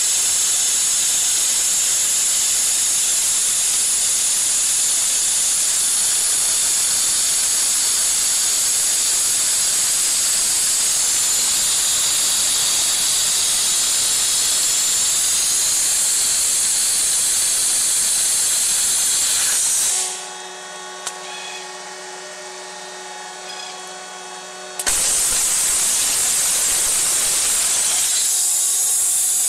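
High-pressure waterjet cutting head blasting through a steel tube, a loud, steady hiss. About twenty seconds in the hiss stops for about five seconds, leaving a quieter machine hum with a few steady tones, then starts again.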